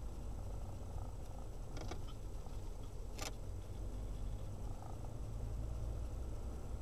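Car driving at low speed, heard from inside the cabin: a steady low rumble of engine and road noise. A few light clicks come about two seconds in and a sharper click a little past three seconds.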